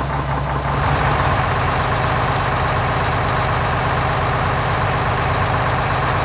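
A vehicle engine running steadily at an even pitch.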